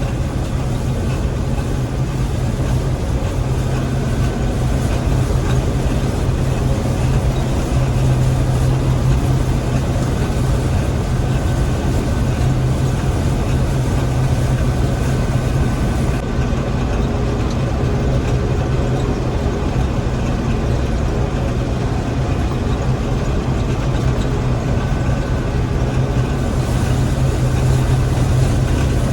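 Gleaner M3 combine harvester running steadily while combining wheat: a constant low engine hum with machinery noise over it.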